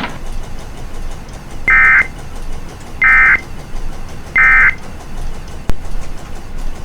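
Emergency Alert System end-of-message data tones: three short, loud, buzzing digital bursts (the SAME "NNNN" EOM code) about a second and a half apart, marking the end of the alert, over a steady background hiss. A single sharp click follows near the end.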